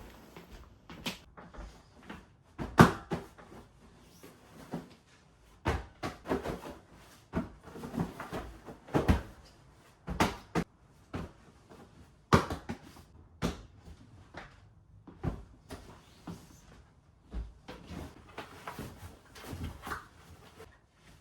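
Irregular knocks and clacks from household handling, such as cupboard doors and objects being put down, about one or two a second. The loudest knock comes nearly three seconds in.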